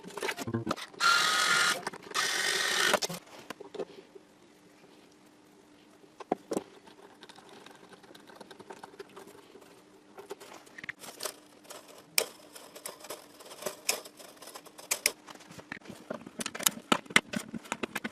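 Workbench handling noises: a loud hissing burst lasting about two seconds near the start, then scattered light clicks and knocks.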